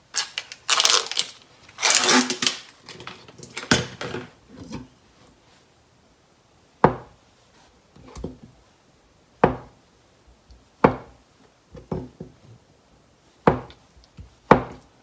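Plastic film crackling as it is peeled off a tofu tray, then a kitchen knife cutting down through a block of tofu, knocking on the cutting board about seven times, a second or so apart.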